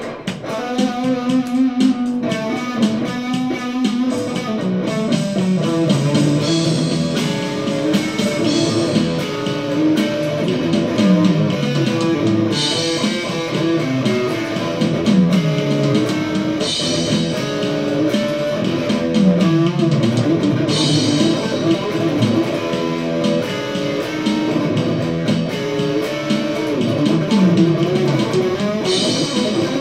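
Electric guitar played through an amplifier, steady single-note melodic playing with phrases that fall in pitch, recurring every few seconds.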